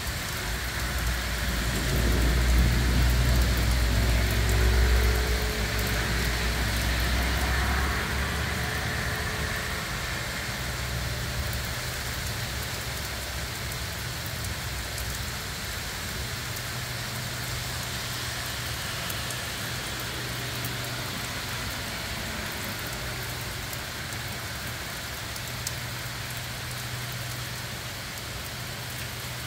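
Heavy downpour: a steady hiss of rain falling on leaves and wet pavement. A car passes on the wet street in the first several seconds, adding a low rumble that is loudest a few seconds in.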